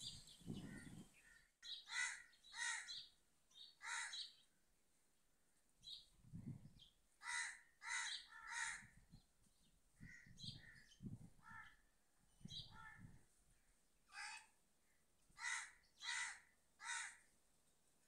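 Crows cawing repeatedly: short calls in quick groups of two or three, with gaps of a second or two between groups.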